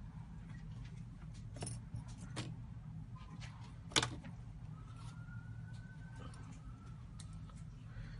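Scattered light clicks and taps of small tools working on a phone's parts, with one sharper click about four seconds in, over a steady low hum.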